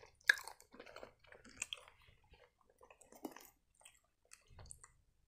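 Close-up chewing: a mouth working food, heard as scattered soft clicks and brief mouth noises, the sharpest click just after the start.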